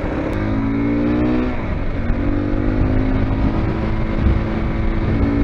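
Zongshen RX3 single-cylinder motorcycle engine, fitted with a 300 cc big-bore piston kit, pulling hard under acceleration. Its pitch rises, dips briefly about two seconds in, then climbs again, over a low rumble of wind.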